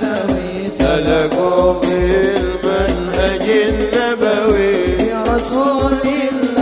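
A man singing a melismatic Arabic devotional sholawat into a microphone, backed by hadroh percussion with a steady deep drum beat about twice a second.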